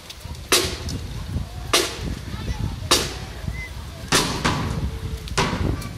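A marching band's bass drum struck in a slow, steady beat: five hits, about one every second and a bit.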